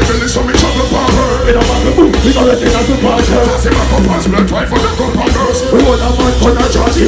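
Loud live dancehall music played by a band through a concert sound system, with heavy bass and a deejay's vocals over it.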